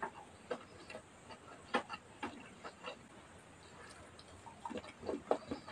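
Close-up eating sounds of someone eating rice by hand: scattered soft clicks and smacks from chewing and lips, and from fingers working rice on a plastic plate, with a quick run of smacks near the end.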